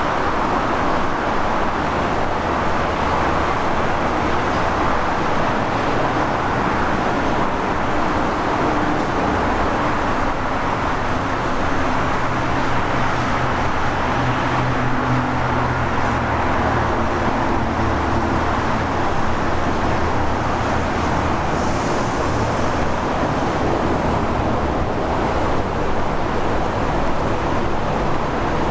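Steady vehicle noise, a constant rushing with a low engine hum that grows stronger through the middle.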